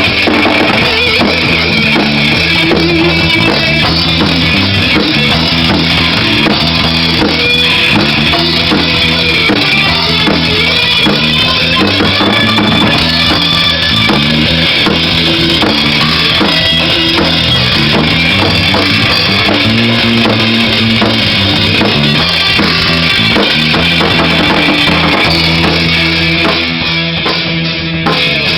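Rock band playing live and loud: a drum kit with bass drum and snare under electric guitar and bass.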